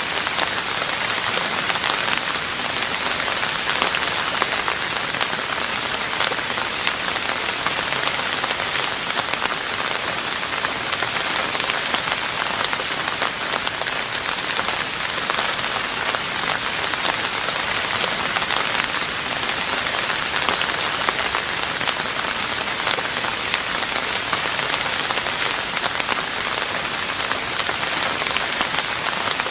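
Steady rain falling on a roof: a dense, even hiss of countless small drop impacts that holds unchanged throughout.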